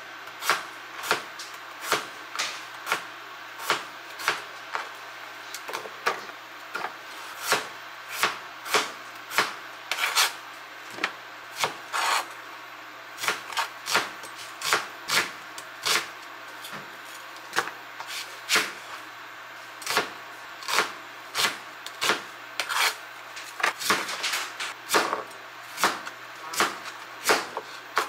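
Ceramic-coated chef's knife cutting raw potato, onion and carrot on a cutting board: a steady run of sharp knocks as the blade strikes the board, about two a second.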